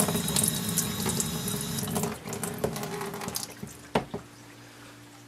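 Water running from the hot and cold spigots, dying away over the first few seconds as they are turned off. A single sharp click about four seconds in.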